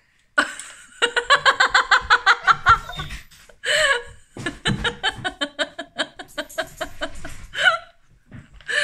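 A person laughing: a fast, even run of laughs starting about a second in, followed by further shorter bouts of laughter.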